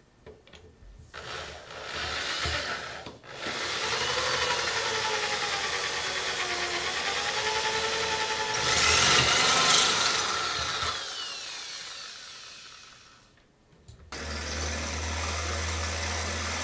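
Power drill running a long 13/64-inch bit through a hollow metal door, its pitch wavering as it cuts, with a louder, harsher stretch about halfway through before it winds down. After it stops, a steady low hum follows.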